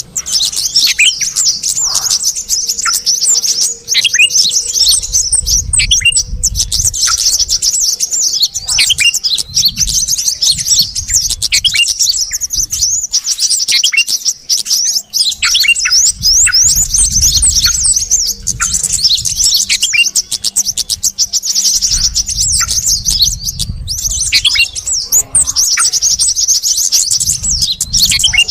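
Dense, busy chirping and twittering of bulbuls, with many short downward-sweeping calls overlapping: a bird-lure recording mixing yellow-vented bulbul (trucuk) and sooty-headed bulbul (kutilang) calls.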